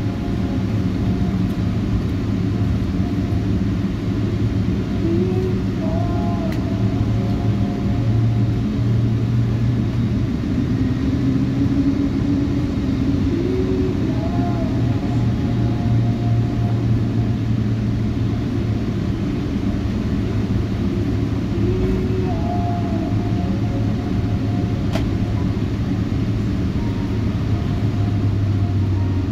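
Steady cabin noise inside a Boeing 777-200ER: an even low hum and rumble from the engines and airframe. A faint, brief wavering tone recurs about every eight seconds.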